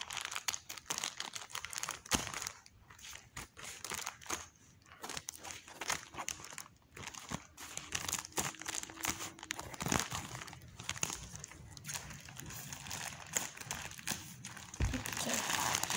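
Small plastic toy packets crinkling and rustling in the hands as they are handled and opened with scissors.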